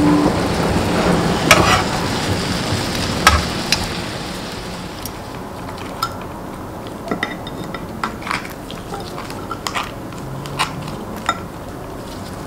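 Marinated ribs sizzling in a hot pan, with a couple of sharp knocks as they are turned. About five seconds in the sizzle gives way to quieter, scattered light clicks and taps of food and dishes being handled.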